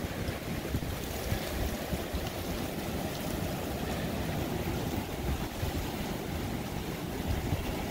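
Strong thunderstorm wind rushing steadily, with a low rumbling buffet of wind on the microphone.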